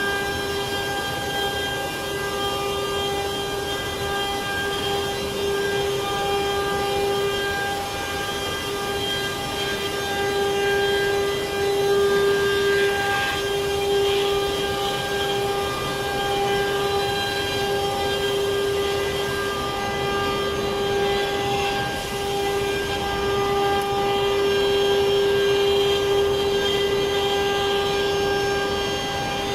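CNC wood router spindle running steadily while carving, a high, unbroken whine over the hiss of cutting.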